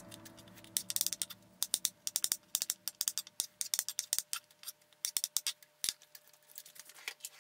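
Chef's knife dicing button mushrooms on a wooden cutting board: quick, irregular taps of the blade striking the board. Near the end the taps thin out to a few lighter clicks as a fork stirs the chopped vegetables in a bowl.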